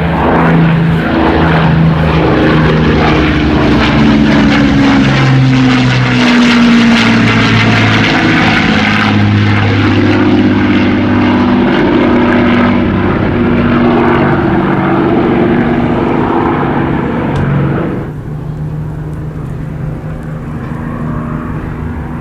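Rolls-Royce Merlin-engined WWII warbird flying past, loud propeller engine drone with its pitch shifting as it passes. About 18 seconds in the sound turns suddenly duller and quieter as the aircraft moves away.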